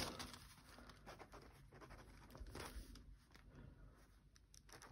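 Faint scratching of a Refyne EP1 titanium pen's tip writing on paper, a series of short irregular strokes as a word is written.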